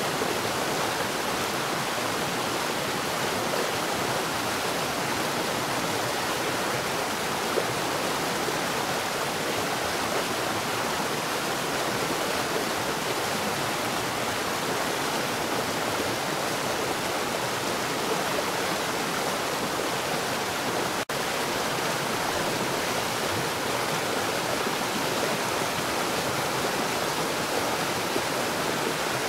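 Water falling rapidly underground: a steady, even rush of falling water. There is a split-second dropout about three-quarters of the way through.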